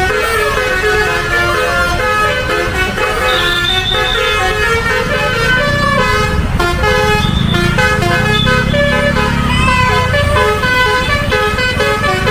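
Multi-tone 'telolet' bus horn playing a tune of stepping notes throughout, over the bus engine running, which grows louder in the middle.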